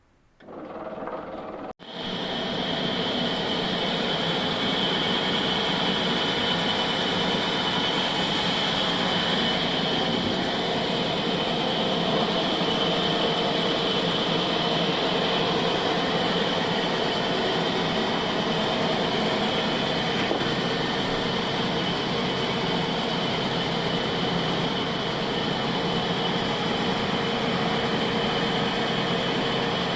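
Old bandsaw sawmill running steadily, a constant machine noise with a high whine over it. It comes in abruptly about two seconds in.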